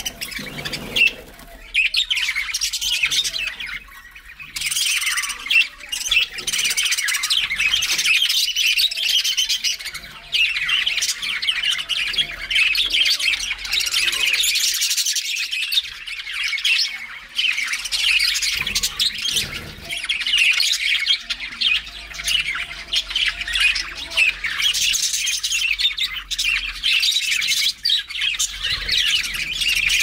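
A flock of budgerigars chattering and chirping together, many birds calling over one another without pause in a dense stream of short, rapid calls.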